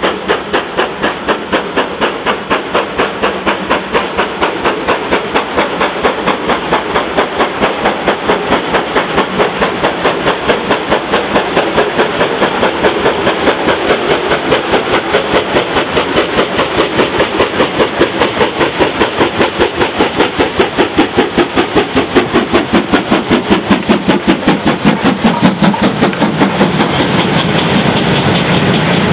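GWR 0-6-0 pannier tank steam locomotive 1501 hauling a goods train, its chimney exhaust beating regularly, about three beats a second, growing louder as it approaches. About 26 seconds in the beats give way to the steady rumble and clatter of the goods wagons rolling past on the rails.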